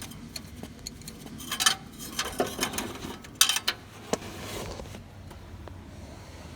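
Metal hand tools and parts clinking and rattling in a string of sharp clicks, loudest about halfway through, as a spark plug is worked out of the engine.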